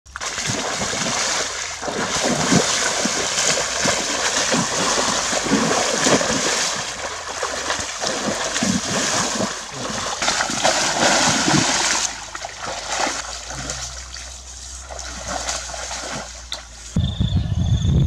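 Water splashing and sloshing in a shallow muddy pond, a person wading through it with repeated splashing steps for about twelve seconds before it dies down. A steady low rumble starts near the end.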